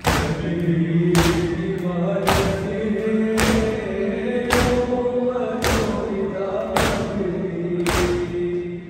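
A crowd of mourners beating their chests in unison (matam), one heavy communal slap a little over once a second, about eight in all, under a lament chanted by many voices that keeps time with the strikes.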